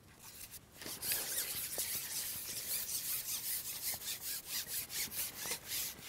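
Carbon fishing pole being shipped out, its sections rubbing and hissing in quick, even strokes, about three a second, as it is fed forward hand over hand.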